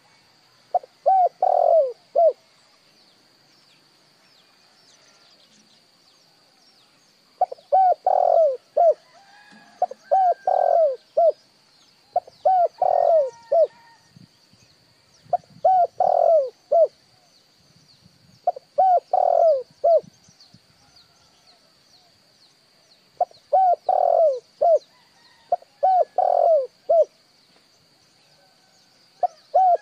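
Spotted dove cooing: repeated phrases of three or four soft notes. The first phrase comes about a second in, then after a pause the phrases follow every two to three seconds.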